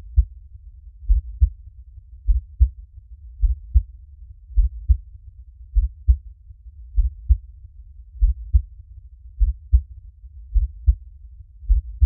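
Slow heartbeat, each beat a low, muffled double thump (lub-dub) with the two halves about a third of a second apart. It repeats steadily about every 1.2 seconds, roughly 50 beats a minute, over a faint low rumble.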